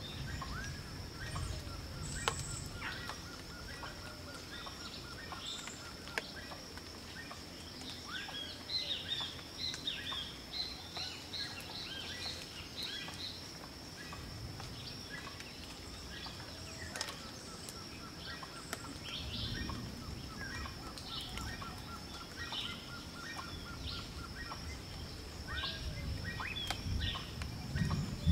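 Outdoor forest ambience: a steady high-pitched drone runs throughout, with many short high chirping calls that are thickest around the middle. A fast rattling trill sounds twice, once near the start and again past the halfway point, over a low rumble that grows near the end.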